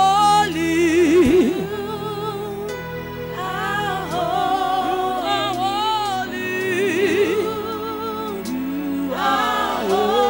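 Gospel song sung by women into microphones, their voices wavering on long held notes over steady sustained chords.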